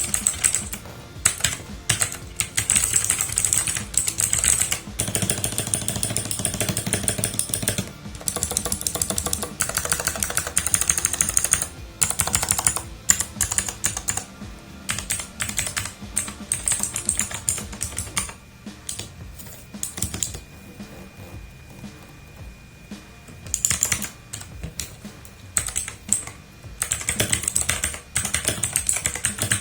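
Typing on a Robot KB20 60% mechanical keyboard with blue clicky switches: fast runs of sharp key clicks, easing off for a few seconds past the middle and then picking up again.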